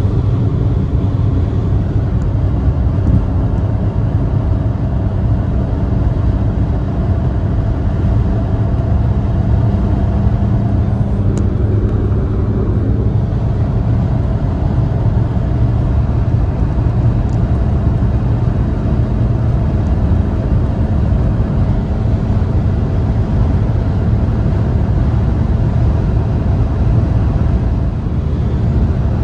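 Cabin noise of a Fiat Panda at high motorway speed, about 140–170 km/h: the engine runs hard at around 4,000 rpm under a steady, loud rush of wind and tyre noise.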